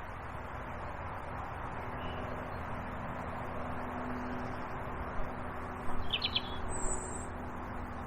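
Wild birds calling: a quick cluster of chirps about six seconds in, then a thin, high call, over a steady rushing background.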